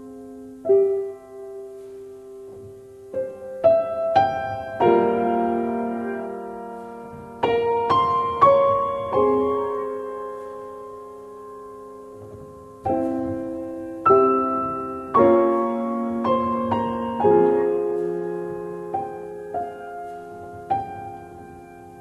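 Gentle piano music: single notes and chords struck and left to fade, with a quieter stretch in the middle.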